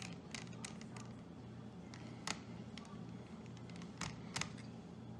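Scattered light clicks and taps of a small Phillips screwdriver and tiny screws being worked out of a laptop's internals. The sharpest click comes a little past two seconds in, with a pair of them near the end, over a faint steady hum.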